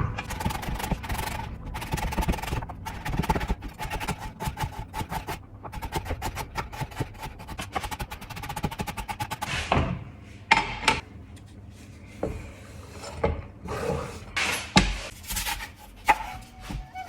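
Fast, irregular knocking for about ten seconds, then fewer, separate knocks, over faint background music.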